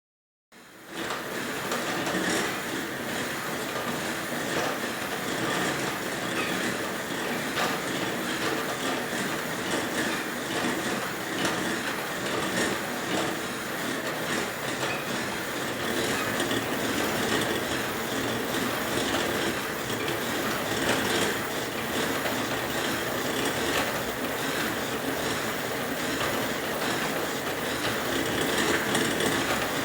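Merax elliptical trainer in motion, giving off a continuous clattering, squeaking mechanical noise that starts about a second in. The machine is very noisy after only a week of use, a sign of a developing fault.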